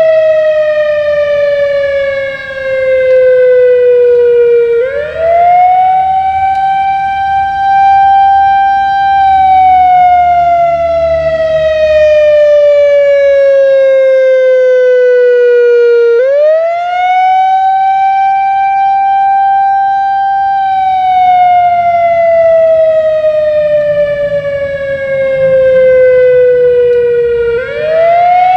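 Whelen WS-3000 electronic tornado siren sounding the wail signal from an analog controller on its routine test. The pitch sweeps up quickly, holds briefly, then slides slowly down, about one cycle every eleven seconds, with fresh rises about five, sixteen and twenty-seven seconds in.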